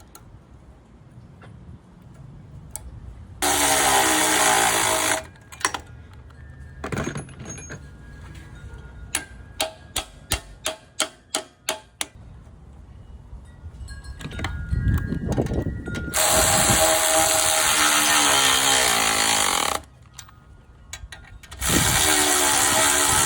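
A handheld power tool working metal in three bursts, each spinning up at the start: a short one about three seconds in, then two longer runs later. Between the bursts comes a quick run of about eight sharp taps.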